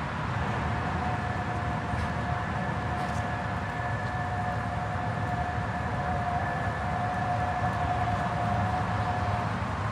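Vehicle road noise, a steady rumble and hiss, with a steady two-pitch tone that comes in about half a second in, holds for roughly nine seconds and stops just before the end.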